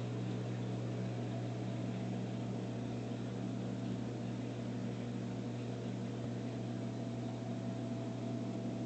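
Reef aquarium pumps running: a steady low hum with an even hiss of circulating water above it.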